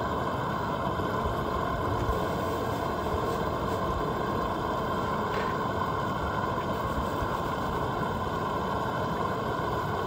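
Fish frying in hot grease in an outdoor fish cooker: a steady sizzle with the burner's rush beneath it.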